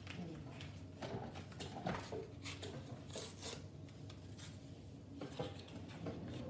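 Faint scattered handling noises: a few light knocks and clicks with short rustles.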